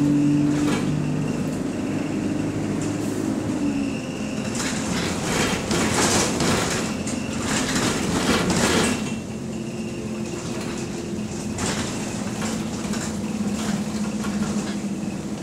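Bus engine and cooling fan heard from inside the saloon, the bus running in limp mode: a steady droning hum that drops in pitch about four seconds in. A stretch of rattling, clattering noise runs from about five to nine seconds in before the drone settles again.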